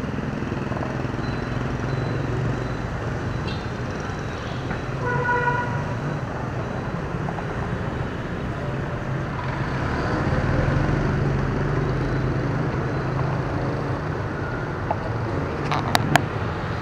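Street traffic of motorbikes and cars running past, with a steady engine hum that grows louder about ten seconds in as a vehicle passes close. A vehicle horn toots briefly about five seconds in, and a few sharp clicks come near the end.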